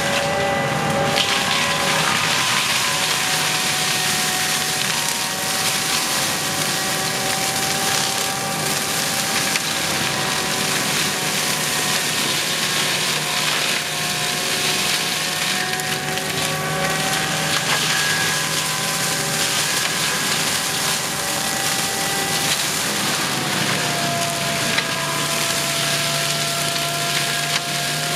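Forestry mulcher grinding through brush and wood: continuous crushing and splintering over the steady whine of the machine, whose pitch sags slightly now and then as the cutting load changes.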